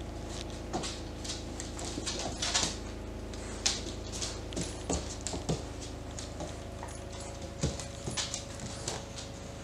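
Rhodesian Ridgeback puppy playing with a plush toy on a hardwood floor: an irregular run of claw clicks, paw scuffs and soft taps as it shakes, pushes and paws the toy.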